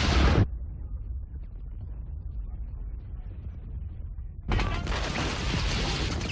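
Intro sound effects: a loud rushing blast with deep rumble cuts off about half a second in, a quieter low rumble carries on, and a second loud rush of noise starts about four and a half seconds in.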